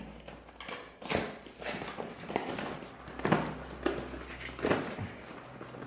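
Small cardboard box being opened and its contents handled: a string of rustles, scrapes and light knocks of packaging.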